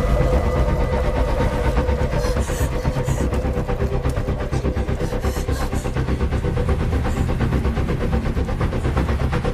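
Engine running steadily, a low rumble with a fast, even pulsing beat.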